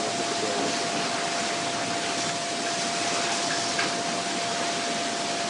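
Steady hiss with a thin, constant high whine behind it, the recording's own background noise; a faint tick near the four-second mark.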